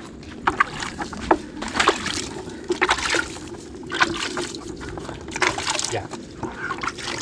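Water splashing and sloshing in a plastic bucket as a sugarcane stalk is scrubbed by hand in it, in irregular splashes.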